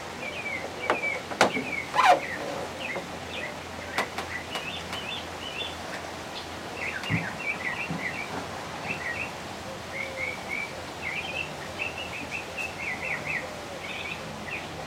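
Many small birds chirping in quick short notes, over a steady outdoor hiss, with a few sharp clicks in the first couple of seconds.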